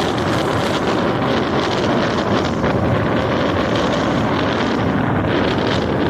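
Rough sea surf breaking, mixed with strong wind blowing across the microphone: a loud, steady rushing noise.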